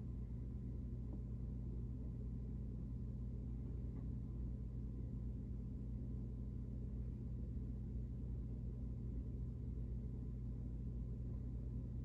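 A steady low hum that does not change, with a faint higher tone above it and one small tick about four seconds in.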